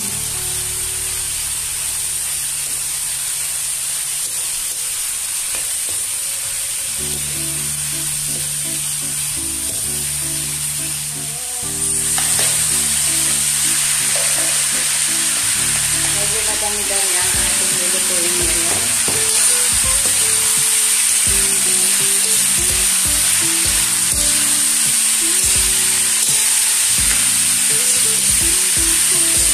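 Chopped hot dogs, chicken and vegetables sizzle in a wok as they are stirred with a metal ladle. The sizzle grows louder about twelve seconds in, when carrot sticks are tipped into the pan. Background music plays underneath.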